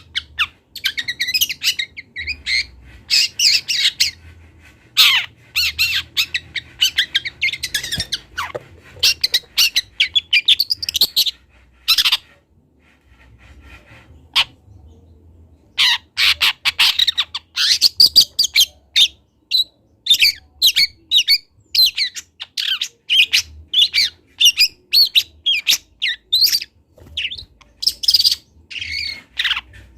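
Young long-tailed shrike practising its song: fast runs of short chirping and chattering notes, breaking off for about three seconds midway, then resuming more densely.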